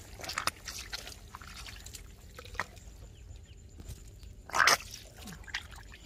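Hands groping in shallow muddy water at a crab burrow: scattered drips and small wet sounds, with one louder splash about three-quarters of the way through.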